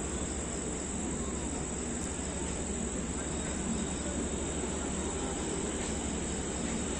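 Steady low rumble and drone of a passenger train rolling slowly past the platform, with a constant high chirring of insects over it.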